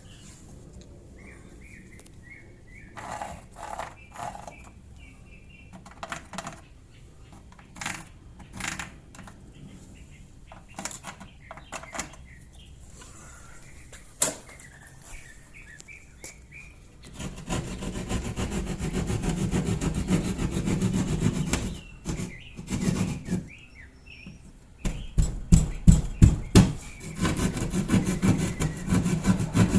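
Scattered knocks and clicks, then a saw cutting through the wall in two spells: one starting about two-thirds of the way in, and a louder one near the end. It is most likely cutting the opening for the outlet box.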